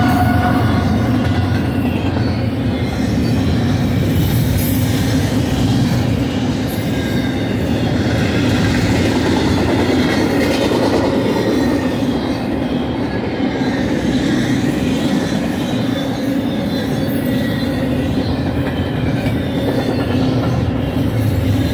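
Double-stack intermodal well cars of a freight train rolling past at speed: a steady, loud noise of steel wheels running on the rails.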